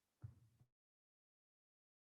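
Near silence: a brief faint sound about a quarter second in, then dead silence.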